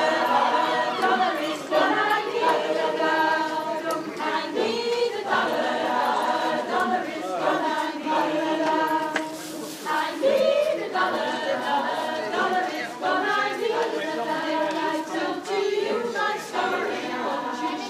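Mixed-voice community street choir singing a cappella in several-part harmony, with held notes and frequent chord changes.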